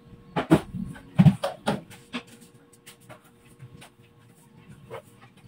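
A quick run of sharp knocks and clatters about half a second to two seconds in, then a few faint scattered clicks.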